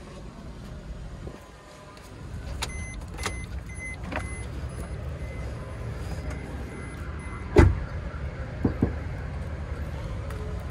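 Car engine idling steadily, with scattered clicks and faint intermittent electronic beeping. About two-thirds through comes a loud thump like a car door shutting, then two lighter knocks.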